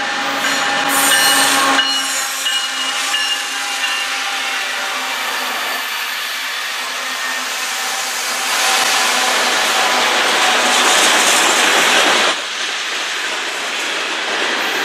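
CN manifest freight train rolling past at close range, its steel wheels running over the rails, with some steady wheel squeal in the first few seconds. A CN diesel locomotive in the train's consist passes about eight seconds in, and the sound is louder for about four seconds before it drops back to the rolling cars.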